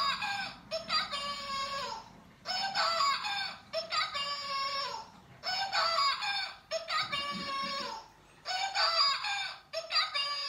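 Pokémon watch alarm sounding: a tinny electronic voice-like call about a second long, falling in pitch at its end, played in pairs that repeat about every three seconds.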